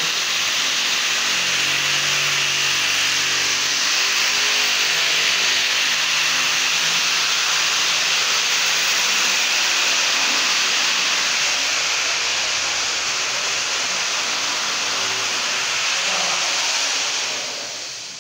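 A loud, steady hiss with faint low tones beneath it, fading away near the end.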